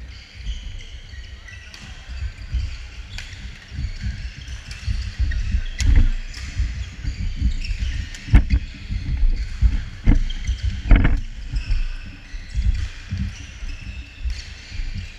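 Badminton doubles rally in a large gymnasium: several sharp racket strikes on the shuttlecock, mostly between about 3 and 11 seconds in, over heavy irregular low thudding of footsteps on the hardwood court and the general noise of the hall.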